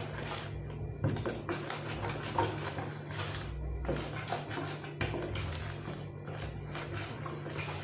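A spoon stirring thick blended bean batter (akara paste) in a plastic bowl, with irregular scrapes and knocks against the bowl, over background music.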